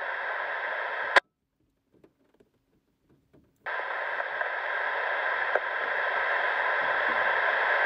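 Railroad two-way radio hissing on an open carrier with no voice, cut off by a squelch click about a second in. Silence follows for a couple of seconds, then the hiss comes back suddenly and grows slightly louder.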